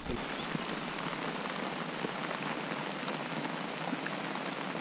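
Steady rain falling, an even hiss with a few single drops ticking now and then.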